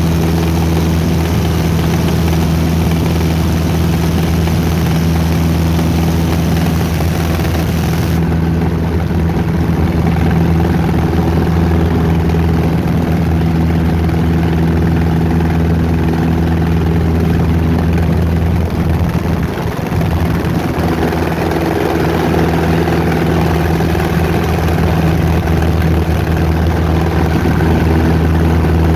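Fly Baby 1B light airplane's piston engine and propeller running at a steady speed, holding one even pitch.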